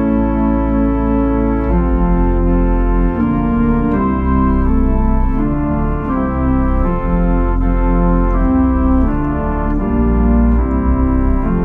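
Church organ playing a slow hymn in sustained full chords over a deep bass line, the chords changing about once a second.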